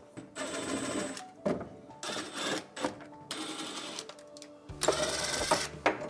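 Large adhesive vinyl remake sheets being handled: a series of short rustling, crackling strokes, each under a second long.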